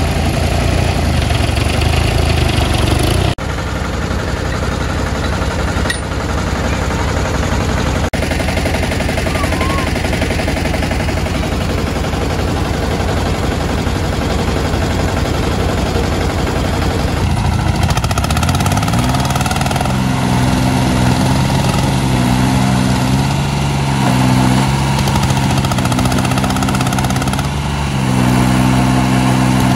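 Small mini-tractor diesel engines running, broken by a few abrupt cuts. About two-thirds of the way through, a tractor engine revs up and then holds a steady higher note under the load of towing a stuck tractor.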